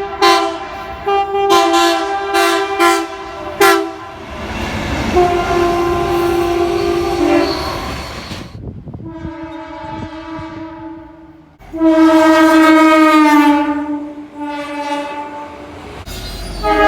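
Train air horns sounding in a string of separate clips: a run of short blasts, then several held horn chords, one over the rushing noise of a moving train and one that sags slightly in pitch as it goes on.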